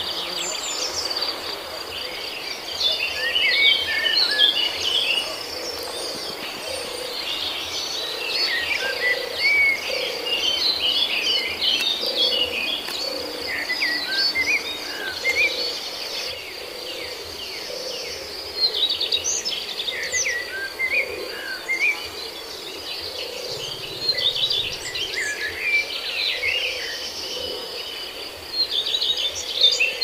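Outdoor birds chirping and calling in many quick short notes over a steady high-pitched insect buzz.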